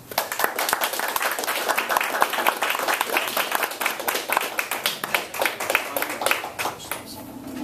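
Audience applauding, a dense patter of clapping that starts at once and dies away shortly before the end.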